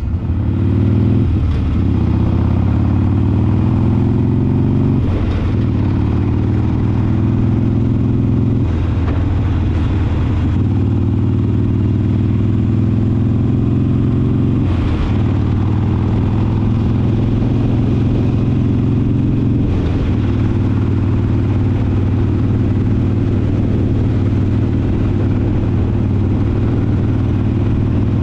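Harley-Davidson V-twin motorcycle pulling away and shifting up through the gears, the revs climbing and then dropping back at each of several shifts. The loose heat shield on its cheap slip-on muffler rattles along with the engine.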